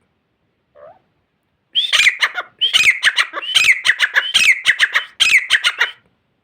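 Francolin (teetar) calling: a faint short note about a second in, then a loud, rapid run of harsh repeated phrases, each with a falling note, that stops about six seconds in.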